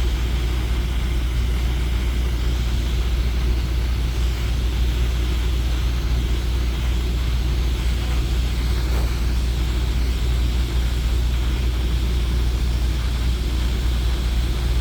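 A torch burning steadily with a constant low rumble and hiss as it heats the bumper's plastic tab.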